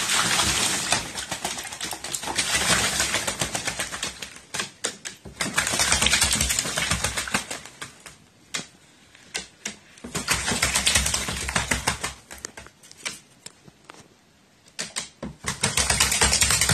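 A crow bathing, beating its wings in the water in bouts of rapid fluttering splashes a second or two long, about five times, with scattered single splashes and drips between.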